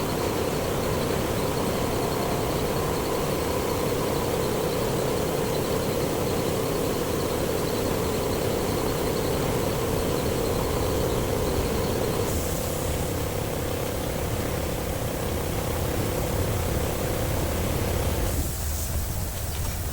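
Steady mechanical hum with hiss, like a running machine. It changes abruptly near the end, when the hum drops away and a lower rumble and hiss remain.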